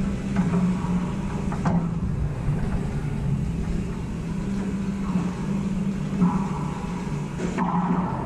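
A steady low hum fills the court. A racquetball is served against the front wall near the end, a single sharp crack.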